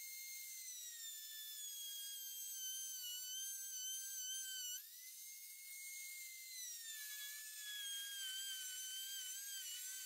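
Dremel rotary tool spinning a sanding drum against a steel sword blade: a faint, high-pitched motor whine. Its pitch sags as the drum bears into the steel and jumps back up about halfway through.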